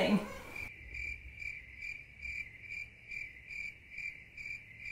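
Cricket chirping, used as a comic 'crickets' sound effect for an awkward silence: a high, even chirp repeating a little over twice a second, starting just under a second in.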